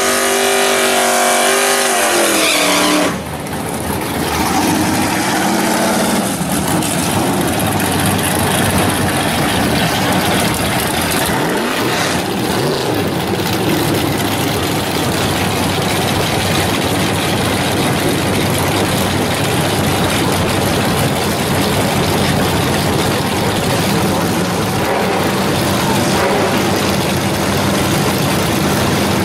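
Drag-racing car engines revving hard for water-box burnouts: the revs are held high and then drop about three seconds in, followed by loud, sustained engine and tyre noise with another rise in revs midway. Near the end a single engine holds a steady drone as a car waits at the starting line.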